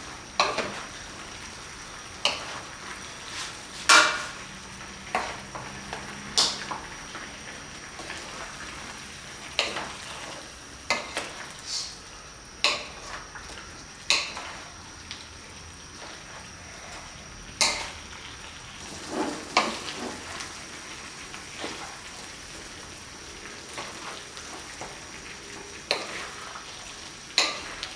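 Pork trotters sizzling in sauce in a wok over turned-up heat while a wooden spoon stirs them, with irregular knocks and scrapes of the spoon against the pan.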